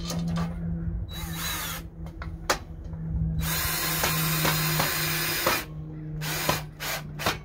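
Cordless drill driving screws through a metal gate bracket into a wooden 2x4. There is a short burst about a second in, a longer run of about two seconds from around three and a half seconds, and a few brief spurts near the end.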